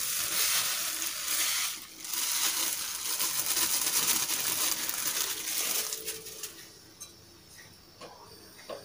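Granulated white sugar poured from a plastic bag into a metal wok: a steady hiss of grains landing on the pan, with the plastic bag crinkling as it is shaken empty. The sound drops away about six seconds in.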